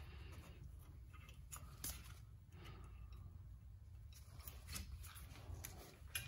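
A few faint, light metal clicks and scrapes as a thin pick works the cotter pins and pad-retaining pins on a brake caliper, over low room noise.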